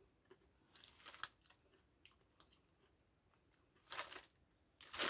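Crisp packet crinkling faintly in short, scattered bursts as it is handled, loudest near the end as it is lowered.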